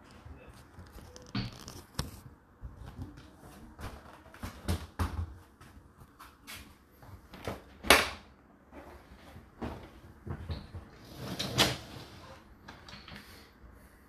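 Whirlpool dishwasher door being released and pulled open after the cycle: a run of light knocks and clicks from handling, with a sharp latch click about eight seconds in and another loud clatter a few seconds later.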